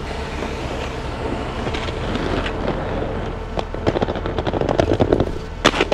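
Inline skate wheels rolling on concrete. About three and a half seconds in, a run of sharp clacks and scrapes starts as the skates hit and catch on a curved ledge, with the loudest knocks near the end.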